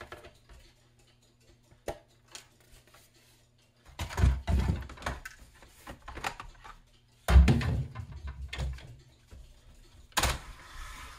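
Plastic projector housing pieces being handled and set down on a workbench: scattered clicks, with two louder bursts of knocking and clattering about four and seven seconds in, and another near the end.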